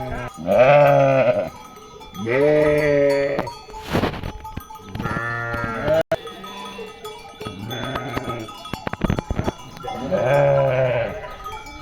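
Sheep bleating repeatedly, about five separate calls of roughly a second each, each rising then falling in pitch.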